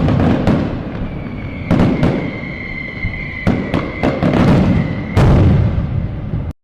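Fireworks going off: a string of sharp bangs over a low rumbling boom, with a steady whistle held for about four seconds in the middle. The sound cuts out abruptly for a moment at the very end.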